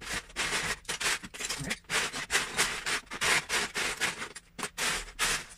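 Loose Lego bricks rattling and scraping against each other and the plastic tub as a hand rummages through them: an irregular, continuous clatter of small clicks, with a couple of brief pauses.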